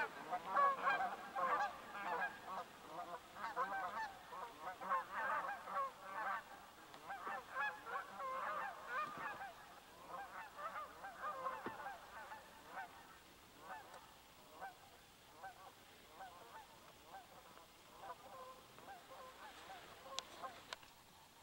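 A flock of Canada geese honking over and over in flight, a dense chorus of calls that thins out and grows fainter over the second half.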